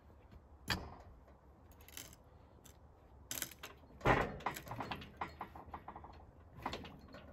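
A cant hook levering a 12-inch-thick white pine cant over on a portable sawmill's steel bed: a few knocks as the hook bites and the timber shifts, then the loudest thump about four seconds in as the cant rolls up onto its edge, followed by a quick run of lighter clacks.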